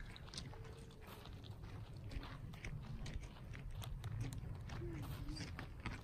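Irregular crunching footsteps on gravel, over a low steady rumble of wind on the microphone.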